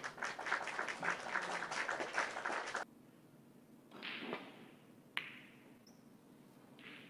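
Snooker audience applauding, cut off abruptly about three seconds in. Later comes a single sharp click of snooker balls as the cue ball strikes the pack of reds on the break-off.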